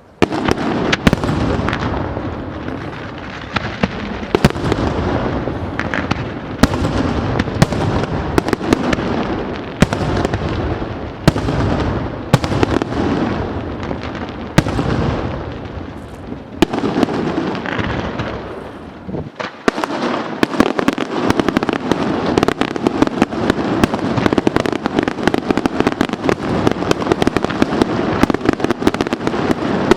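Fireworks display with a rapid series of loud bangs, each followed by a fading echo. About two-thirds of the way in it thickens into a dense, almost continuous volley of crackling reports.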